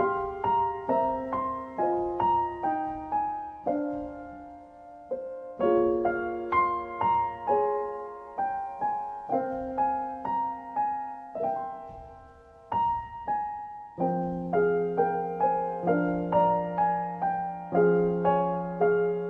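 Background piano music: a slow, gentle melody of single struck notes over soft chords, each note fading after it is played. A low bass note comes in about two-thirds of the way through and is held under the melody.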